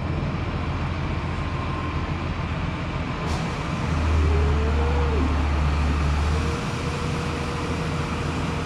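Tractor engine running steadily while a grain cart unloads through its auger into a semi trailer. About four seconds in the low engine note grows louder for a couple of seconds, with a faint whine rising and falling, then it settles back, a steady faint whine staying on.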